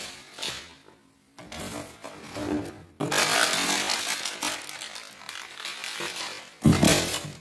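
Plastic wrapping and cardboard packaging being handled and rustled in a box, crinkling in short bouts and then for several seconds, with one loud short knock near the end.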